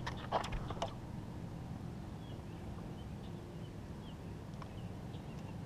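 Clicks and rustles of hands working a hook out of a bass's mouth among tangled reed stems, mostly in the first second. Short faint bird chirps come every second or so over a steady low hum.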